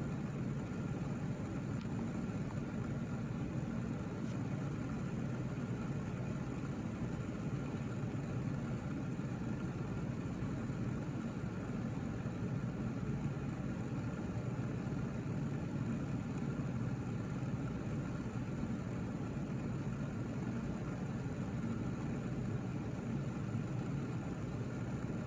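Steady low mechanical hum of room background noise with a few faint steady tones above it and no distinct events.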